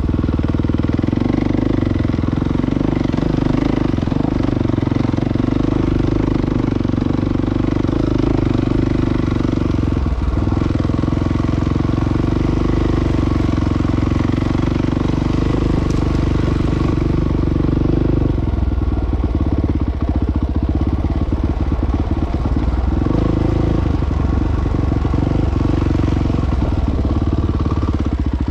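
Enduro dirt bike engine running under way, steady revs at first; about two-thirds of the way through the engine note breaks up into uneven throttle pulses.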